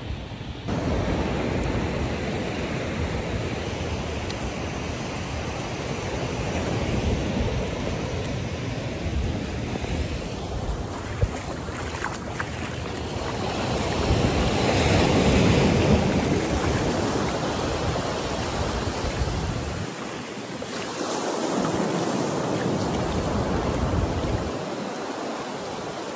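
Ocean surf breaking and washing up the beach, a steady rushing that swells loudest about halfway through as a wave washes in. Wind buffets the microphone with a low rumble that drops away briefly twice near the end.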